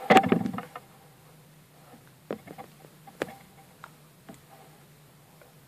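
Nylon paracord being pulled and handled on a wooden board: a loud rustling swish in the first half second, then scattered faint clicks and taps.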